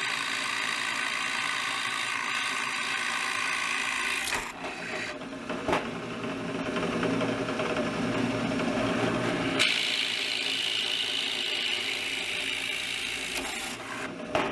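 Drill press running with a Forstner bit boring large holes in maple, a steady machine whine under the cutting. The tone changes clearly twice as the bit cuts and is eased off, with a couple of sharp clicks.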